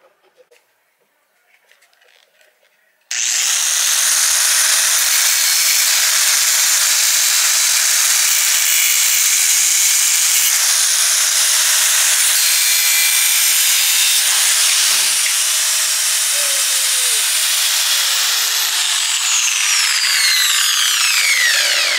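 Angle grinder switched on about three seconds in, running loud and steady for about fifteen seconds. It is then switched off and winds down with a falling whine near the end.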